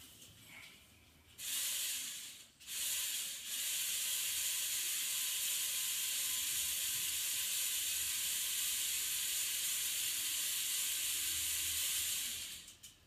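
Electric motor and gear train of a motorised LEGO Technic mobile crane model whirring as the boom lowers. Two short runs come first, then one steady run of about nine seconds that stops shortly before the end.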